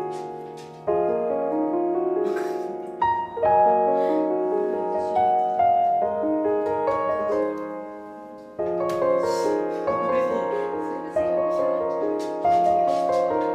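Background piano music: single notes and chords struck and left to ring, with a new note every second or two.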